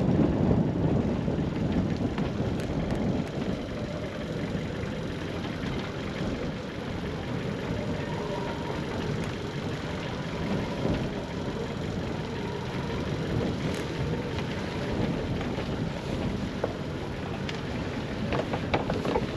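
Steady wind and water noise aboard a sailing yacht, with wind buffeting the microphone.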